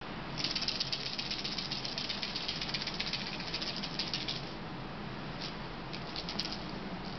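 A cat's rattle toy shaken fast and without a break for about four seconds, a dry, high-pitched rattling, then shaken again in a few short bursts near the end.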